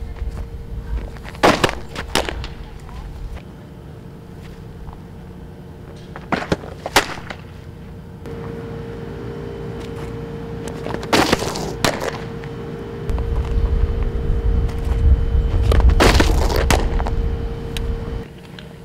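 Fastpitch softballs smacking into a catcher's mitt: four pitches about five seconds apart, each heard as a pair of sharp pops about half a second apart. A steady low rumble runs underneath, heavier in the last few seconds.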